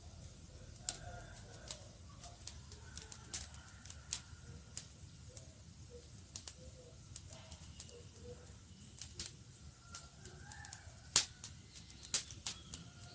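Campfire crackling: irregular sharp pops and snaps from burning wood over a low steady rumble, with one louder snap about eleven seconds in.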